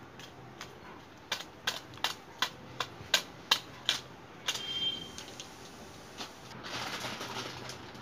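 Steel slotted ladle clicking against the pan while stirring masala broth, about three sharp clicks a second for a few seconds. Then a soft hiss as the broth begins to boil.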